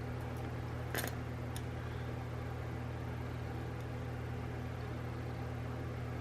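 Small beads being handled: a light click about a second in and a fainter one shortly after, over a steady low hum.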